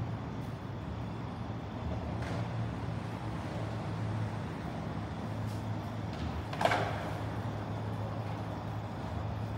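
Steady low hum of city traffic, with one brief, sharper sound about seven seconds in.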